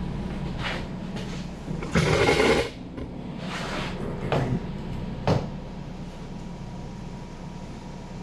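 Handling noises as a stick-on reflector is fitted to the kayak: a few rustles and knocks, the loudest a longer scraping rustle about two seconds in and a sharp click a few seconds later, over a steady background hum.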